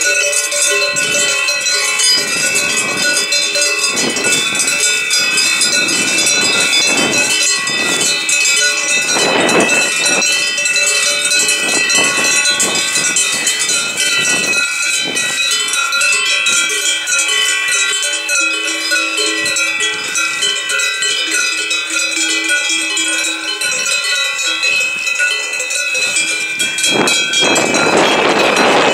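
Many cowbells on a trotting herd of cows clanging all together, a dense, continuous jangle of overlapping ringing tones. A broad rushing noise swells near the end.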